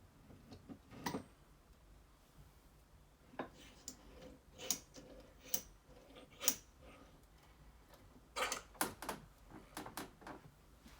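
Scattered faint clicks and knocks of a small restored metal bench vise being handled and put away, busier near the end.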